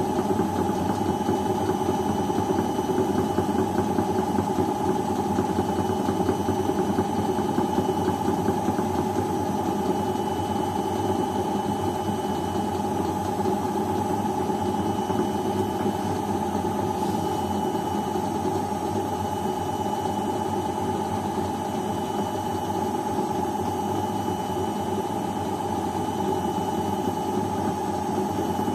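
Beko front-loading washing machine running: a steady motor hum with a faint high tone that comes and goes every few seconds.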